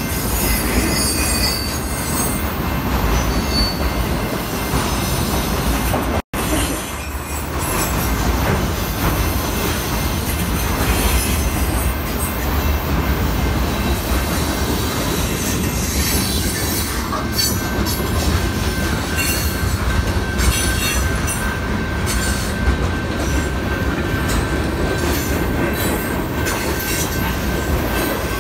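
Freight cars of a manifest train rolling past at a grade crossing: a steady rumble and clatter of steel wheels on the rails, with a thin, steady wheel squeal over it, most noticeable in the second half. The sound drops out for an instant about six seconds in.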